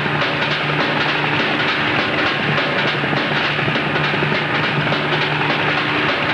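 Helicopter in flight: rotor blades beating fast and evenly over a steady engine hum.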